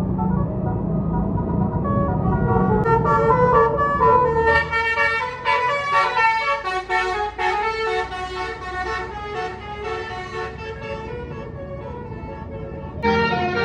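Tour bus's Basuri musical horn (telolet) playing a quick tune of stepped notes over the low rumble of the bus's engine. The rumble fades after about four seconds while the tune runs on, and a new loud blast of horn notes starts near the end.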